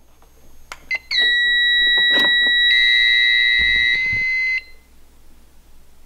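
Button clicks on a fire alarm annunciator, then the fire alarm panel's sounder gives a loud, steady, high-pitched beep for about three and a half seconds during a main system reset. A second, buzzier tone joins it partway through, and both cut off together.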